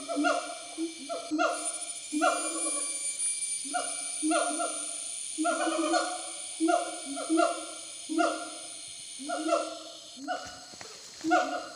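Gibbons calling in a long series of hooting notes, each sliding down in pitch, about two a second and sometimes overlapping, over a steady high-pitched buzz.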